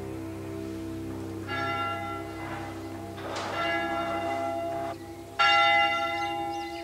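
Church bells ringing: three strikes, each ringing on, with the loudest near the end.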